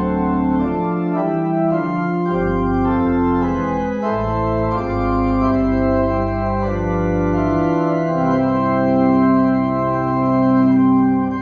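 Organ playing slow, sustained chords over held bass notes, the church service's closing postlude.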